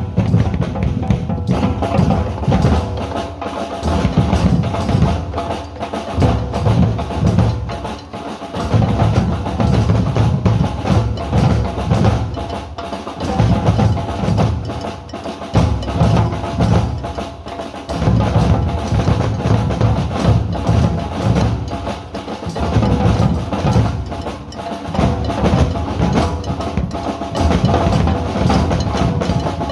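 A group of drums playing together in a continuous, busy rhythm, with deep bass-drum strikes under sharper higher hits.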